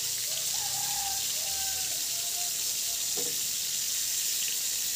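Chicken pieces on skewers sizzling in hot oil in a frying pan: a steady hiss.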